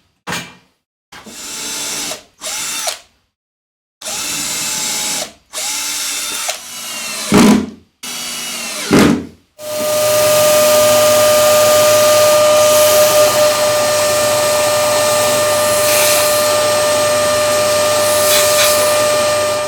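Electric drill triggered in about six short bursts, each spinning up and stopping. About ten seconds in it is held at a steady speed with an even hum until the end.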